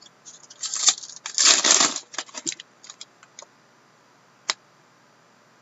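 Hockey trading cards being handled: small clicks and taps, with a louder rustle of cards sliding against each other at about a second and a half.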